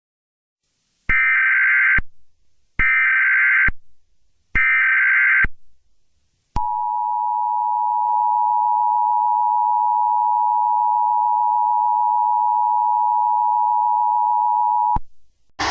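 Emergency Alert System activation from a DASDEC encoder: three SAME header data bursts, each about a second long with short gaps between, then the steady two-tone attention signal held for about eight seconds before it cuts off. The header and tone open a severe thunderstorm warning alert.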